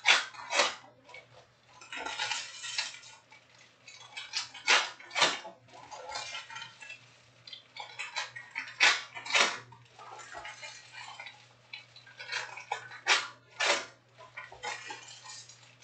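Trading cards and foil pack wrappers being handled and sorted onto piles: sharp crackling slaps, often in pairs about half a second apart and coming every few seconds, with rustling between.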